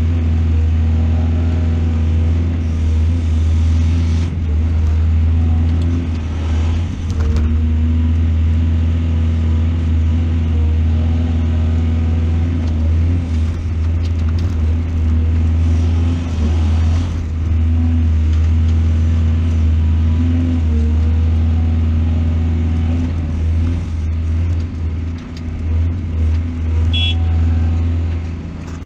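Excavator engine running steadily with a deep drone, its level dipping slightly now and then. Near the end, a brief high-pitched tone.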